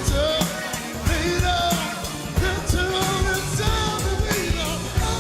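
A singer's voice with a rock-style band accompaniment.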